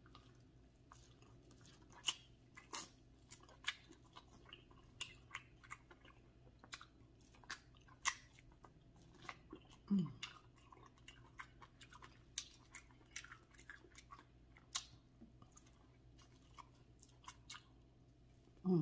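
Quiet, close-miked eating: irregular wet chewing, smacking and crunching clicks of a person working through a seafood boil, with one short falling hum of "mm" about ten seconds in.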